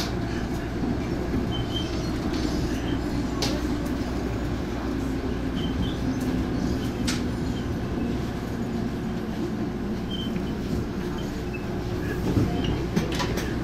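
Interior sound of an MTR East Rail Line MLR electric multiple unit slowing along a station platform: a steady low rumble and hum from the wheels and running gear, with a few sharp clicks and some short high squeaks.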